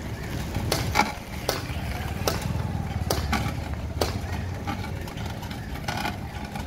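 Concrete paving machine running with a steady low motor rumble, crossed by several sharp clanks spaced irregularly through it.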